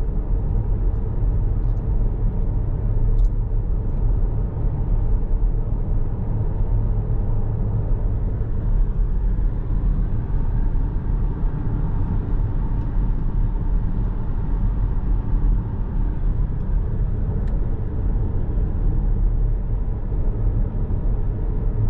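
Car driving along the road: a steady low rumble of engine and tyre noise that does not change.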